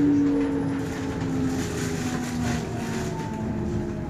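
Berlin S-Bahn electric train's traction motors whining in several tones that slowly fall in pitch as the train slows into a station, over the rumble of the wheels on the rails.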